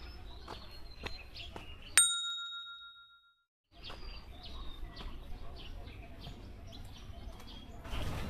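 Small birds chirping in short, high calls, with a single loud bell-like ding about two seconds in that rings out and fades over about a second. The sound then drops to dead silence for about a second before the chirping resumes, and a rush of noise rises near the end.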